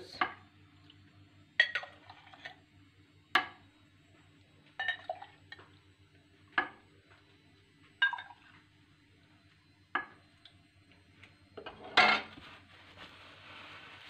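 Glass jars, metal lids and a ladle in a pot clinking and knocking as hot grape juice is jarred. The sharp strikes come about every one and a half to two seconds, and the loudest is near the end.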